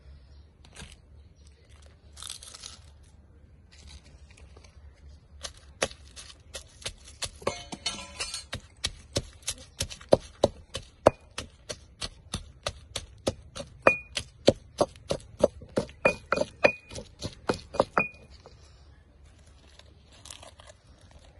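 A stone pestle pounding shallots and red chilies in a heavy stone mortar: a steady run of sharp knocks, about three a second, which starts a few seconds in and stops a few seconds before the end.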